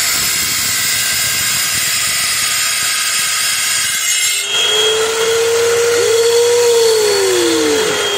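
Small rock saw's diamond blade cutting through an agate nodule: a loud, steady gritty hiss. About halfway through, the sound changes to a steady whine, which drops in pitch near the end.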